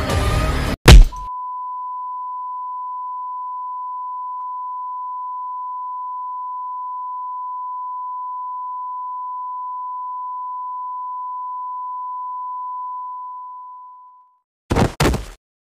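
A sharp, very loud hit sound effect, followed by a single steady high beep tone that holds for about thirteen seconds and fades out, then two more loud short hits near the end.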